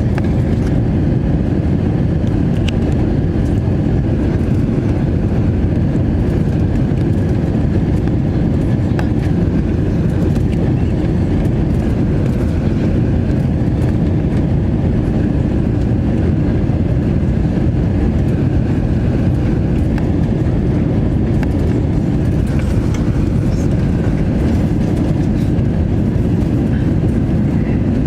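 Steady low rumble of airflow and engines heard inside the cabin of an Airbus A321 airliner in flight on its landing approach.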